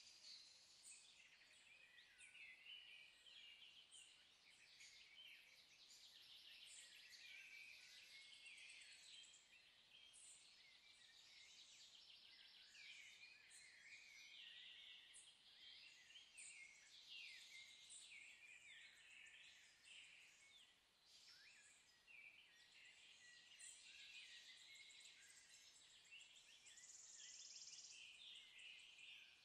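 Faint birdsong: many overlapping chirps and trills, continuous throughout.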